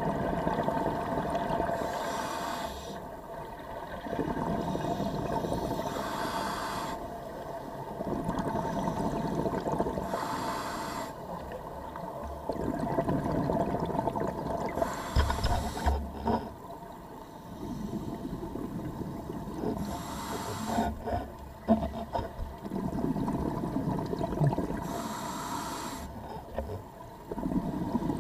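Scuba diver breathing through a regulator: a short hiss on each inhale, then a longer burble of exhaled bubbles, about six breaths in a steady rhythm. A few knocks come around the middle.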